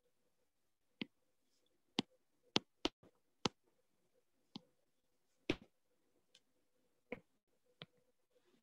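About nine short, sharp taps of a stylus on a tablet's glass screen, unevenly spaced, as hand-drawn annotations are undone one by one. A faint steady hum lies underneath.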